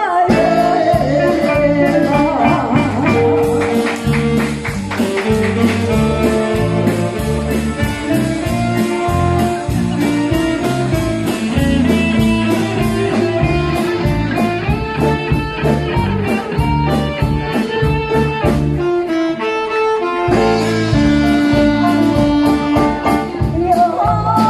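Live band playing an instrumental passage: a drum kit keeping a steady beat under bass, electric guitar, saxophone and keyboard lines. About twenty seconds in, the drums and bass drop out for roughly a second before the band comes back in.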